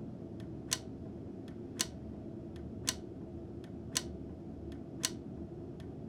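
Clock ticking in a slow, even rhythm, a louder tick about once a second with softer ticks between, over a low steady hum.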